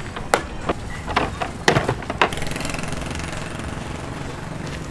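Plastic tubs knocking several times against a metal hand truck as it is loaded, then the hand truck rolling over gravel with a steady rattle.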